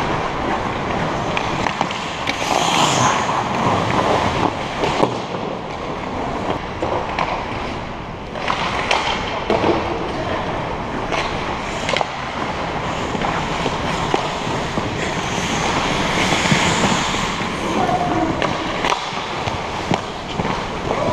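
Ice hockey play: skate blades scraping and carving on the ice with a steady scratchy hiss, broken by scattered sharp clacks of sticks and puck.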